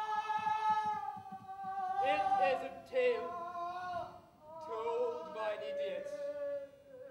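A single voice singing long, drawn-out notes without clear words, the line sliding slowly downward with a wavering tremble in its second half.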